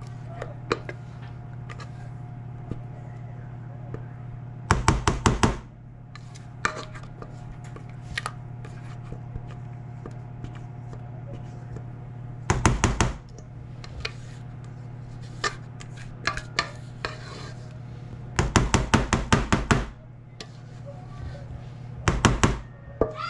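Rubber spatula scraping cake batter out of a stainless steel mixing bowl, with four bursts of quick tapping as it knocks against the metal bowl to shake the batter off, and a few single clicks between.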